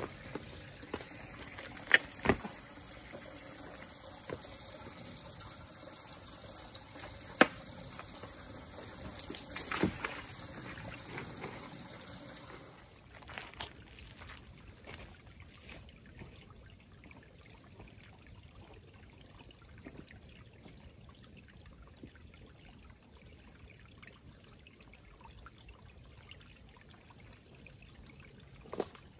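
A shallow creek trickling over rocks, with a few sharp knocks over it. About thirteen seconds in the water sound gives way to a quieter woodland background with faint small ticks.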